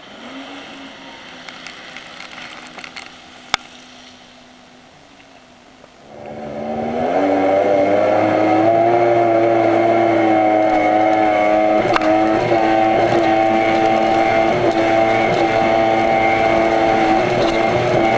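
Jet ski engine idling low, then throttled up about six seconds in with a rising pitch, and running loud and steady at speed.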